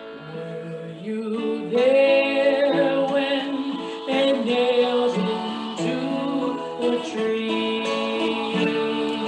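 Slow music: a voice singing held, gliding notes over an instrumental accompaniment.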